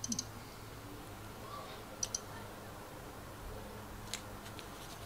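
Faint clicks and taps of hard plastic model-kit sprues being handled: a couple near the start, a pair about two seconds in and one more about four seconds in, over a low steady hum.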